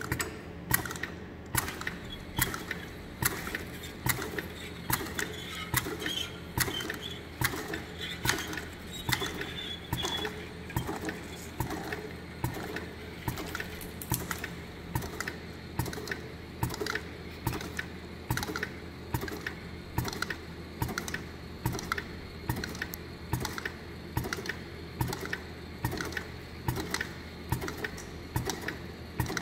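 DediProg DP600-M2 semi-automatic taping machine running, indexing the blister carrier tape step by step and sealing on the cover tape with a regular clack about one and a half times a second, over a steady low hum.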